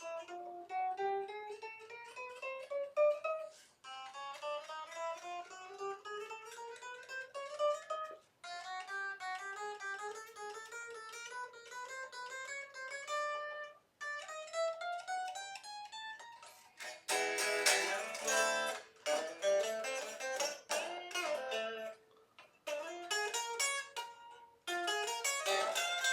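Squier Jagmaster electric guitar played after a fresh setup: single notes picked in runs that climb step by step up the neck, then strummed chords and a few bent notes near the end. The guitar is being checked for fret buzz and notes choking out at the newly set action.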